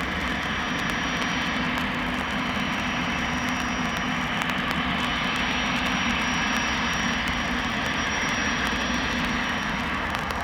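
Embraer Legacy 500 business jet's twin Honeywell HTF7500E turbofans running steadily, a continuous rush with a low hum and a thin high whine that comes and goes.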